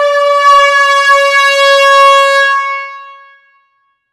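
A horn-like sound effect: one loud held note that fades out about three seconds in.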